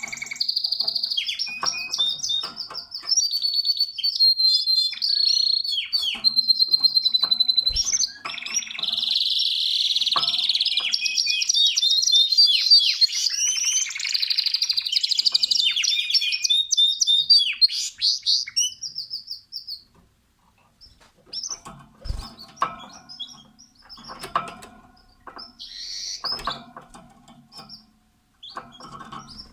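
Domestic canary singing a long, loud song of rapid trills and warbled phrases, which gives way about two-thirds of the way through to softer scattered chirps and calls.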